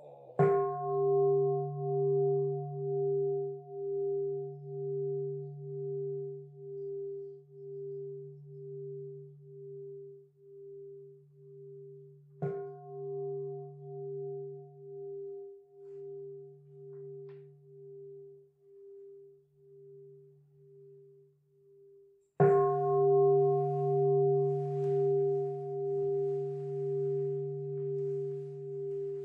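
Buddhist temple bowl bell (kin) struck three times to close a sutra service: once at the start, more softly about twelve seconds in, and hardest about twenty-two seconds in. Each stroke rings on for a long time, its tone pulsing as it slowly fades.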